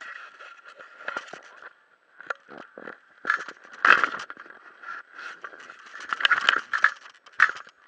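Close handling noise: irregular scraping, rubbing and sharp knocks as a hand moves against the camera and a rubber scuba fin, loudest about four seconds in and again near the end. A faint steady whine runs underneath.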